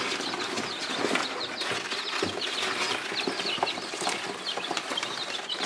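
A brood of baby chicks peeping constantly: many short, high cheeps falling in pitch, overlapping one another.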